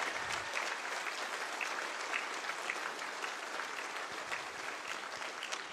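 Audience applauding: dense, steady clapping that eases off slightly toward the end.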